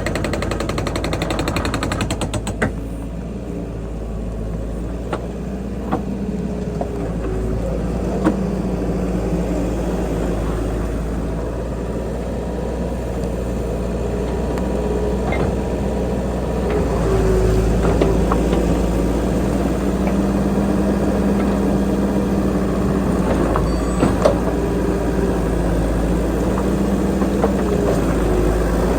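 Engine of a small work machine running steadily under load, with a wavering drone and a few sharp knocks and clanks.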